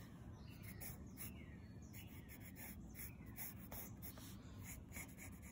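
Pencil sketching on a sketchbook page: a faint run of short scratching strokes of the lead on paper.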